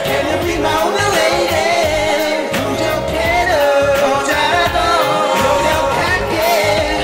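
Live amplified pop song: men singing into handheld microphones over a backing track with a steady beat.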